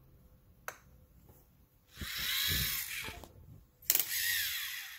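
LEGO Mindstorms EV3 motor whirring as it drives the robot arm through its small-to-large gear train, in two runs of about a second each. A sharp click comes at the start of the second run.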